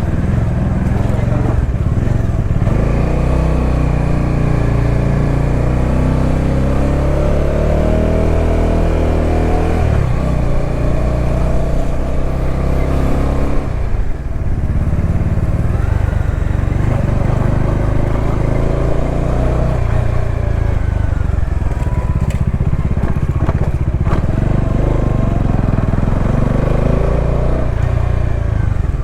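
Motorcycle engine running under way, climbing in pitch for several seconds and dropping sharply about ten seconds in at a gear change, then pulling on at varying revs.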